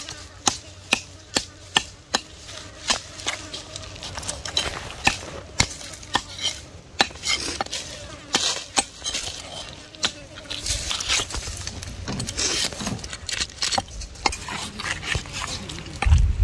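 Knife striking a wooden chopping block cut from a tree trunk: a run of sharp knocks, about two a second at first, then more irregular.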